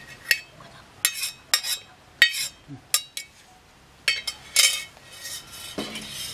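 Stainless steel kitchenware clinking: a steel bowl knocking against a large steel pan and being set down, a string of about seven sharp, ringing metallic clinks.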